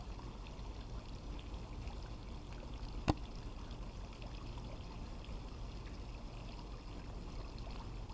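Steady trickling, pouring water at a swimming pool, with one sharp click about three seconds in.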